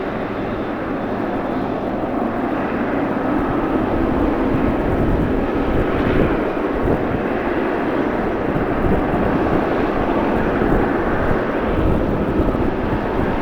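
Jet airliner engines running, a steady noise with a faint high whine that slowly grows louder. Strong wind buffets the microphone underneath.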